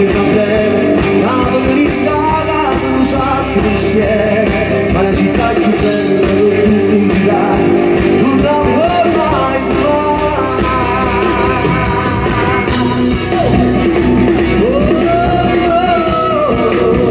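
Neapolitan pop song performed live through a concert PA: a male voice singing over instruments and a steady beat.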